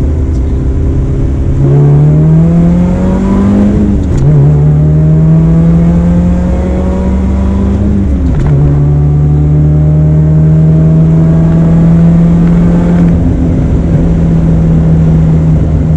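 Supercharged Toyota AE86's 4A-GZE engine accelerating hard through the gears, with the whine of its SC12 supercharger. The pitch climbs, drops at upshifts about four and eight seconds in, climbs again, then levels off near the end.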